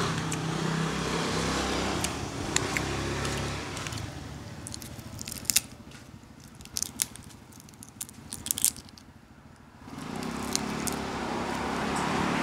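Person biting and chewing prawn close to the microphone, with several sharp crunches of shell in the middle. A steady background rumble fills the first few seconds and returns near the end.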